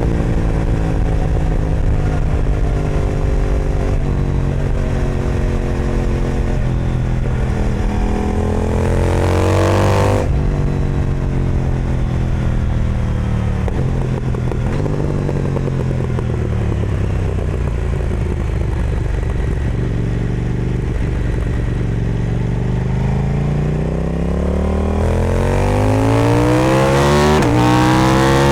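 KTM 990 Duke parallel-twin engine through an Austin Racing aftermarket exhaust, heard from the saddle. Revs fall off, then climb hard to about ten seconds in and drop sharply. The engine pulls at low revs through the middle, then builds again near the end with a quick break, like a gear change, just before the close.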